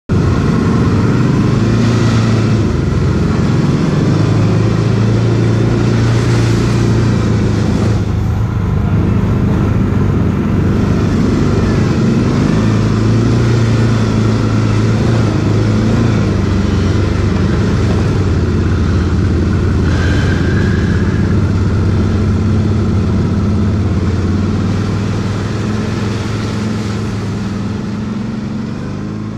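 Quad (ATV) engine running at steady, low revs, fading out over the last few seconds.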